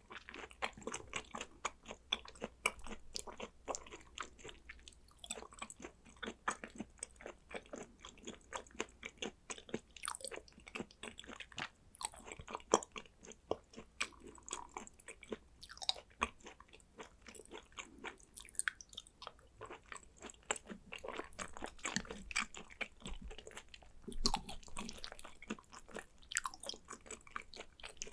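A person chewing and biting thin-sliced raw hanwoo beef, with many quick wet clicks and smacks of the mouth.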